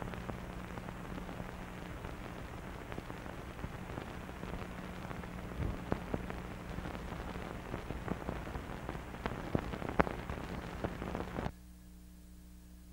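Hiss and crackle of an old film soundtrack, with a steady low hum and scattered clicks and pops. It cuts off suddenly near the end, leaving only a fainter hum.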